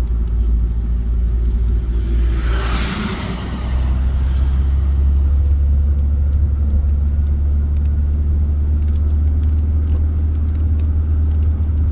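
Steady low rumble of a vehicle on the move, with a brief rushing whoosh about three seconds in.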